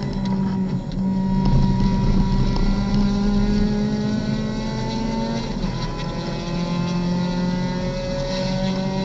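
Four-cylinder engine of a Skip Barber Mazda MX-5 race car, heard inside the cabin, pulling hard under acceleration. Its pitch climbs steadily, drops once a little past halfway as it shifts up, then climbs again.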